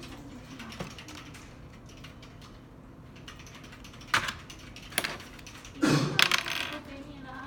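Sharp clicks and knocks: two single clicks about a second apart past the middle, then a louder cluster of knocks and rustling about six seconds in.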